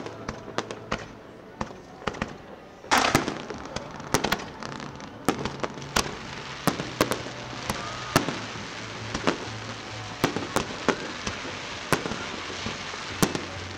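Aerial fireworks going off in rapid succession: many sharp bangs over a continuous crackle from crackling shells, with the loudest, densest cluster of bangs about three seconds in.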